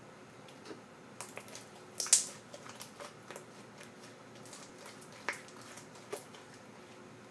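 Homemade glue slime, still a little sticky, squelching and clicking as it is kneaded, stretched and slapped on a countertop by hand. Scattered short wet pops, the loudest about two seconds in.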